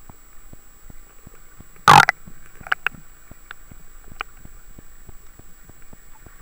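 River water heard through a camera held under the surface: muffled, with scattered clicks and ticks throughout and one loud short burst about two seconds in.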